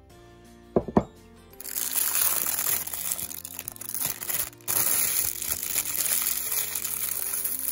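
Thin plastic liner crinkling loudly as it is pushed and fitted into a drinking glass, after two sharp knocks about a second in. Background music plays underneath.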